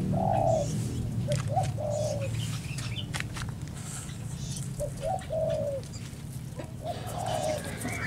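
Zebra dove (perkutut) cooing: four short phrases, each a quick note or two running into a longer coo.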